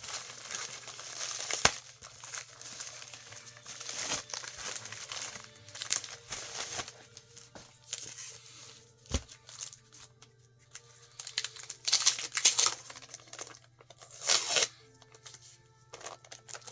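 Crinkling and rustling of plastic comic-book bags and packaging as the comics are handled, in irregular bursts, with a couple of sharp knocks.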